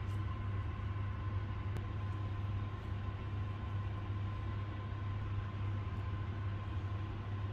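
Steady low hum with a thin, steady high tone above it and a background hiss, unchanging throughout.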